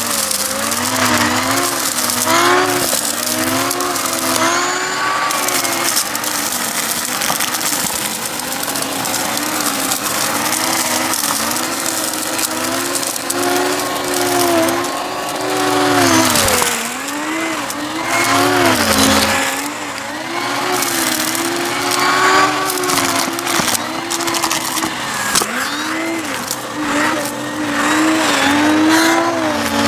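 Bissell CleanView upright vacuum running, its motor pitch dipping and rising with each push and pull of the nozzle, with crackling as debris is sucked up.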